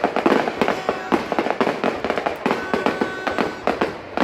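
Fireworks display going off in a dense, continuous run of bangs and crackles, several a second.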